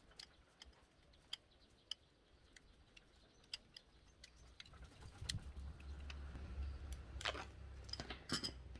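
Faint scattered clicks and rustling handling noise as the backing of double-sided tape is peeled off a small battery pack. A low rumble joins from about five seconds in, with a few louder clicks near the end.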